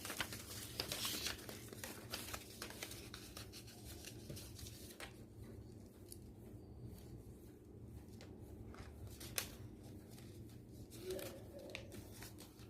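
Faint rustling, crinkling and scattered clicks of craft materials being handled by hand, with a brief burst of crinkling about a second in.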